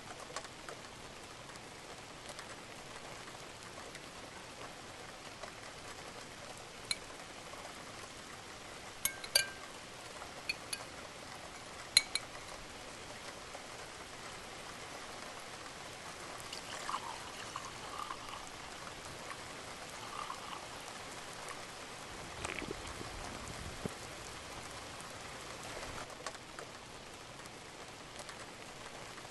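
Steady rain falling, an even hiss, with a few sharp taps between about seven and twelve seconds in and a brief low rumble a little past twenty seconds.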